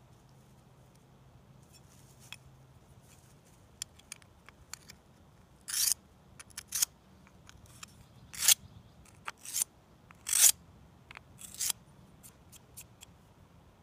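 Router bit being honed by hand on a credit-card-size DMT diamond whetstone: short, scratchy metal-on-diamond strokes. After a few quiet seconds with light ticks, about half a dozen louder strokes come roughly one a second.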